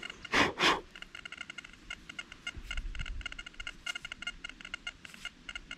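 Rapid electronic beeping from a metal-detecting pinpointer, several short beeps a second, the kind of signal it gives when held near metal. Two brief loud rustles of handling come about half a second in.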